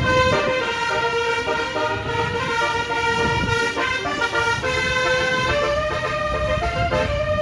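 Bus telolet horn (Basuri multi-tone horn) playing a tune of held notes that step from pitch to pitch every second or so, over low engine and road noise.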